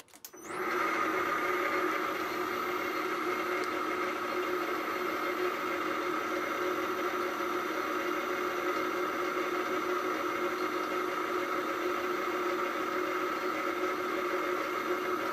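Hafco Metalmaster AL960B lathe, driven by a three-phase motor on a variable frequency drive, starting up about half a second in and then running steadily at low speed. The spindle turns at about 103 RPM with the drive at 22.9 Hz. It makes an even mechanical whir with a high, steady whine above it.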